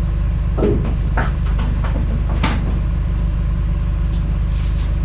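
Rollback tow truck's engine running steadily as a low, evenly pulsing drone, with a few sharp metal knocks and clanks in the first half.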